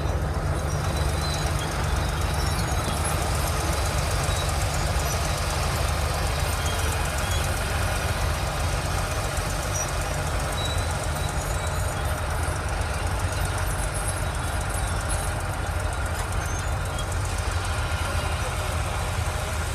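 Heavy diesel engine of earthmoving machinery running steadily, a constant low drone with no change in revs.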